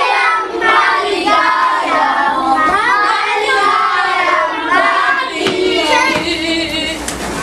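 A group of young children singing a birthday song together.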